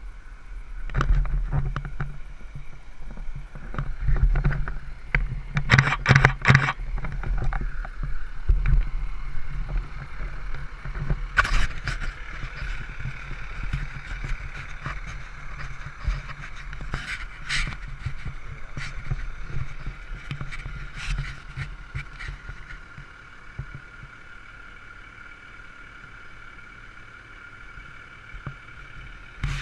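Camera handling noise, with fingers rubbing and knocking against the microphone: a cluster of sharp knocks in the first ten seconds, then scattered clicks. A steady low rumble runs underneath, and a faint steady high hum comes in about twelve seconds in.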